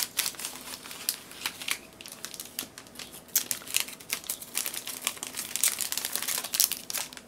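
Crinkling and rustling of a plastic candy-kit bag as it is handled and its plastic mold tray and foil candy packets are pulled out, in many irregular crackles.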